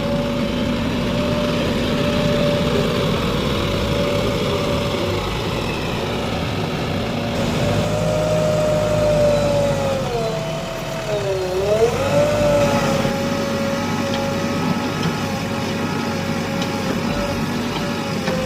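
JCB 3DX backhoe loader running steadily, a whine riding over the diesel engine note. About eleven seconds in, the pitch dips briefly and then climbs back to its steady note.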